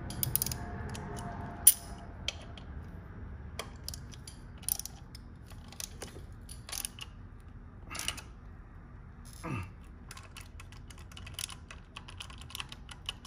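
A hex-bit hand tool turning a small steel socket-head cap screw into a motorcycle frame slider bracket: scattered metallic clicks and ticks, the sharpest about a second and a half in, with a brief squeak near the middle.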